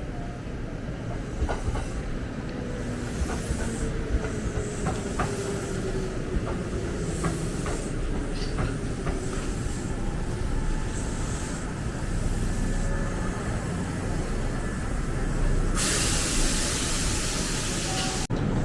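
Electric train running at a station, its motor whine slowly falling in pitch as it slows, over a steady rumble with scattered sharp clicks. A loud hiss starts near the end and cuts off suddenly.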